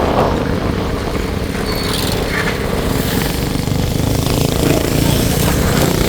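Motorcycle engine running while riding along, a steady low rumble mixed with road and air noise.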